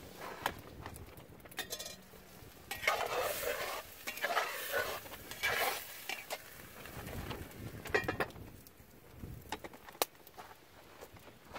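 A spatula stirs and scrapes beans in a lidded pot over a campfire, with a dense scraping stretch through the middle. The metal lid clinks as it is lifted off and set back on, giving a few sharp clicks.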